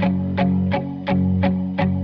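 Background music: a guitar-led pop track with a steady beat of about three hits a second over held bass notes.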